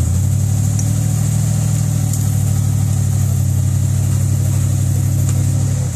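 Rock crawler buggy's engine, loud and held at a steady raised speed under load as the buggy climbs a rock ledge, dropping off at the very end.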